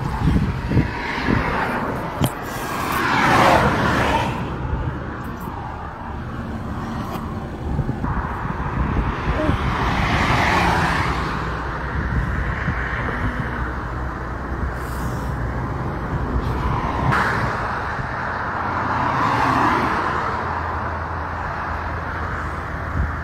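Wind buffeting a phone's microphone, over a low rumble of traffic that swells and fades three times. A few sharp knocks come in the first two seconds.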